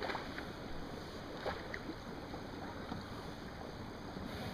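Faint, steady lapping of water against a kayak's hull, with a few soft ticks in the first couple of seconds.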